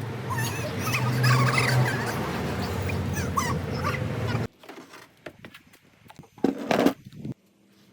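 Animal calls with short wavering cries over a steady low hum, cut off abruptly about four and a half seconds in; after that, faint clicks and one short loud burst near the end.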